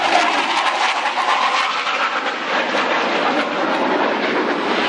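Four Blue Angels F/A-18 Hornet jets flying low in tight diamond formation: a loud, steady jet roar with a rough crackle, growing louder near the end as they close in.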